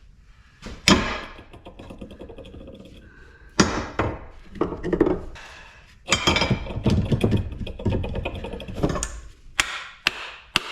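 Hammer blows and metal clanking as a stubborn part is knocked loose from scrap metal. There are single strikes about a second in and again near four seconds, a stretch of rapid clattering in the middle, and then a quick run of sharp strikes near the end.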